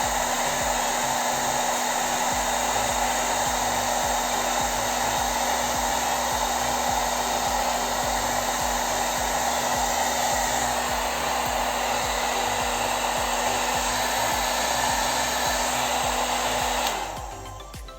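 Handheld hair dryer running at a steady blow with a constant hum, then stopping about a second before the end, after which quiet music is heard.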